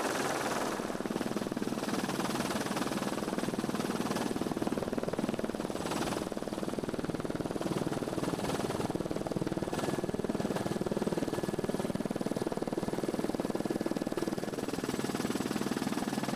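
Helicopter turbine and rotor noise heard from aboard the aircraft, a steady running sound that holds an even level throughout, with a faint high whine on top.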